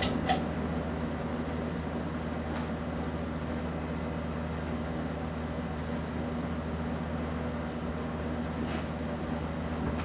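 Casablanca Delta II ceiling fan running, its motor giving a steady hum under the even rush of air from the turning blades. A single short click comes about a third of a second in.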